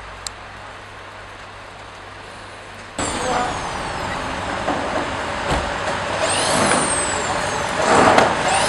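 A faint steady hum, then about three seconds in a loud, noisy scraping with knocks and high squeals on a corrugated metal awning as snow is cleared off it.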